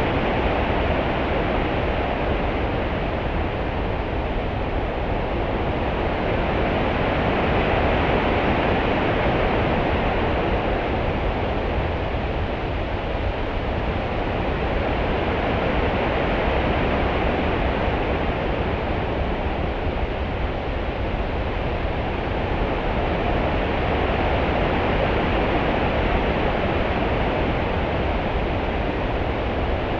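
Open-sea swell: a steady rushing wash of water that slowly swells and eases every several seconds, over a low rumble.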